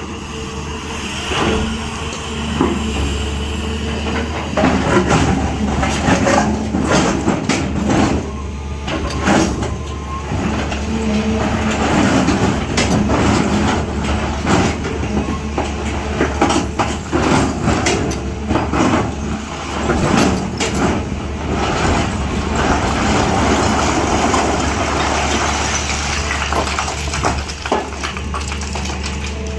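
A SANY SY365H long-boom excavator's diesel engine running steadily, with irregular knocks and clatters of the bucket working in soil and rock.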